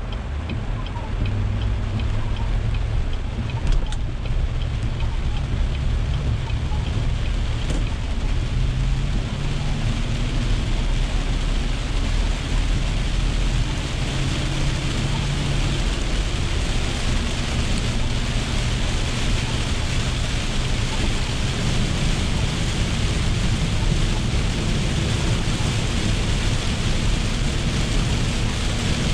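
Inside a car driving in heavy rain: the engine and tyres rumble as the car pulls away and picks up speed, while the hiss of rain and tyre spray on the wet road grows steadily louder. A turn signal ticks at the start.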